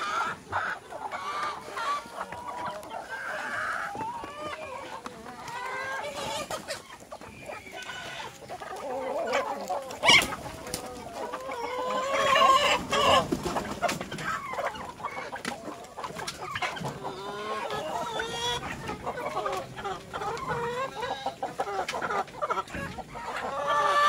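A flock of chickens clucking and calling continuously, with a rooster crowing among them. A single sharp knock about ten seconds in.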